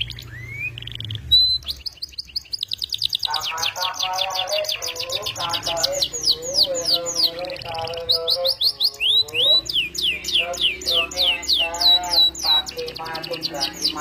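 Domestic canary singing a long, fast song: rolling trills of rapidly repeated downward-sweeping high notes, with lower warbling notes under them from about three seconds in.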